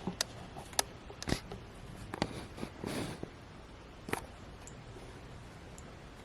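Handling noise: a scattering of light clicks and taps from small objects being picked up and set down, about eight in the first four seconds, then only faint background.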